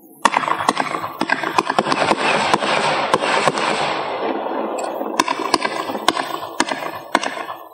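Consumer 1.4G fireworks cake firing: a rapid run of sharp reports, about three a second at first and then more spaced, over a dense hiss. It starts and stops suddenly.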